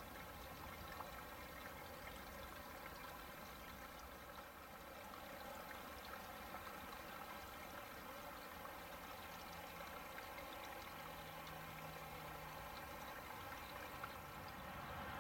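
Distant Boeing 737-800's CFM56 turbofan engines idling during pushback: a steady, faint hiss with a thin whine.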